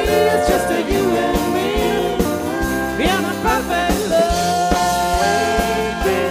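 Live country band playing an instrumental passage: pitched melody lines that bend in pitch over a steady drum and bass beat of about two pulses a second.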